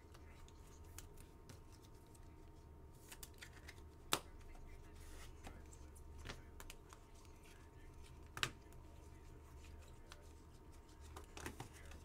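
Faint handling of trading cards and plastic card holders: light rustling and sliding, with a few sharp clicks, two louder ones about four seconds and eight and a half seconds in. A faint steady hum runs underneath.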